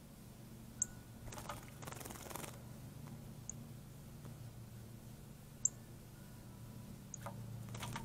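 Female northern cardinal bathing in a shallow bird bath: splashing and wing-fluttering in the water about a second and a half in and again near the end. Several sharp, very short high chip notes fall between.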